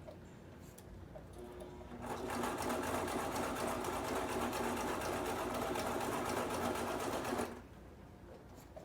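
Brother sewing machine running at a steady speed for about five seconds, stitching a hair weft onto a wig cap. It starts about two seconds in and stops abruptly near the end.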